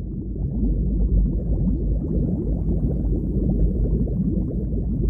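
River water bubbling and gurgling heavily right at the microphone, a dense low churn of bubbles that swells up over the first second and then holds steady.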